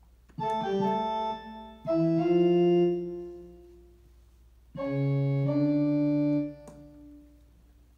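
Digital piano played in slow chords, each held at a steady level for a second or two and then released, with a short pause about halfway through.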